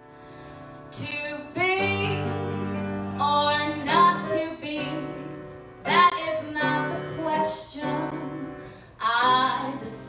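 Mezzo-belter woman singing a ballad live with piano accompaniment. The piano plays softly for about a second before the voice comes in, then she sings in long phrases with short breaths between them.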